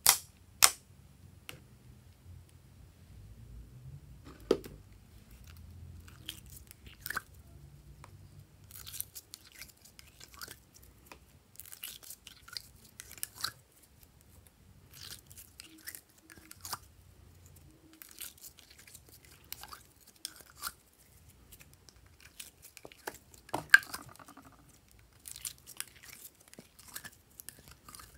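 Fingers squishing and pressing glossy slime, giving irregular sticky clicks and crackles, with a couple of sharper clicks, one just after the start and one near the end.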